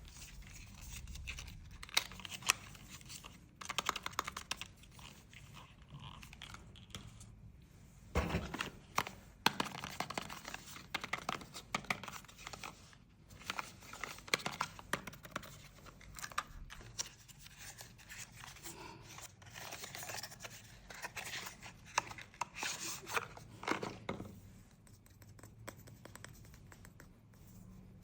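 Cosmetics packaging being handled and opened: irregular tearing, crinkling and scraping with sharp clicks and taps, busiest in the middle stretch and quieter near the end.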